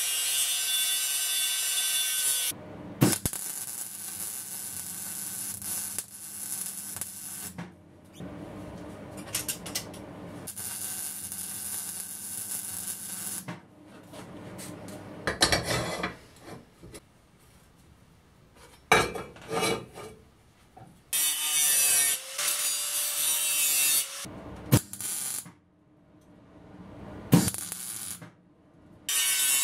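Angle grinder cutting steel in several short bursts, each a loud whine, broken up by quieter stretches and a few sharp clicks. Near the end comes a brief crackle of welding.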